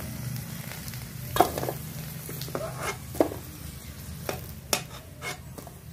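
Ghee sizzling in a steel kadhai while a steel slotted spoon scoops out fried potato cubes, knocking against the pan and the steel bowl in a series of sharp metallic clinks.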